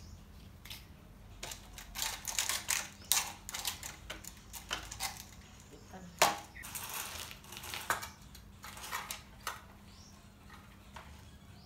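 Plastic toy construction vehicles being handled: an irregular run of clicks, rattles and knocks, with the loudest knock about six seconds in followed by about a second of scraping.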